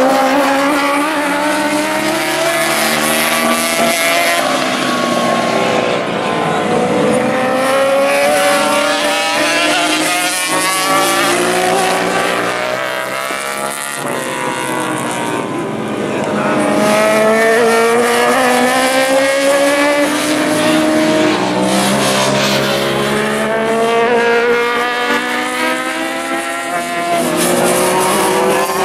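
Several classic superbike racing motorcycles passing one after another. Their engines rev up and back off as they brake into and accelerate out of tight corners, so the pitch keeps rising and falling. The sound dips briefly about halfway through, then the next bikes come through loudly.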